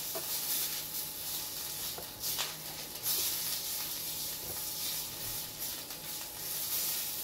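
Beef fillet sizzling as it sears in a thin layer of hot olive oil in a pan over lively heat, a steady hiss with a few light clicks about two to three seconds in as the meat is shifted to keep it from sticking.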